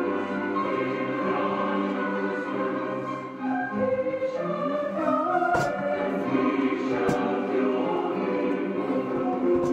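Music with a choir singing. Two short knocks come about halfway through, a second and a half apart.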